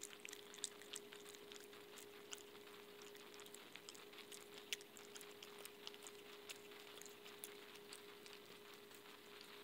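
Opossum eating soft fruit and avocado from a plate: faint, irregular wet clicks and smacks of chewing. A steady faint hum runs underneath.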